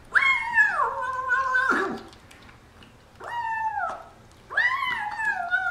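Kitten meowing in long, drawn-out wails while eating from a bowl, three calls, each falling in pitch toward its end.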